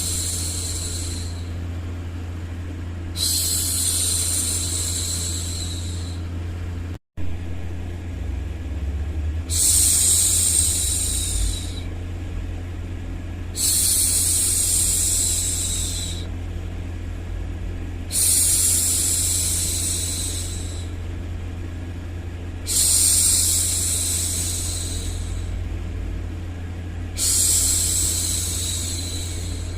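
A woman's voice making long shushing 'shhh' sounds, each about two seconds long, repeated about every four and a half seconds over a steady low hum. The sound cuts out for an instant about seven seconds in.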